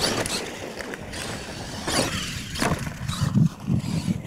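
Radio-controlled monster truck running hard across loose dirt, its tyres scrabbling and spraying dirt, with a few sharp knocks about two seconds in.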